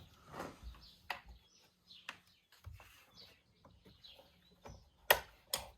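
Faint bird chirps in the background, with scattered light clicks; the two loudest, sharp clicks come close together near the end. A faint low hum cuts out about halfway through: the smoke pump's motor stopping.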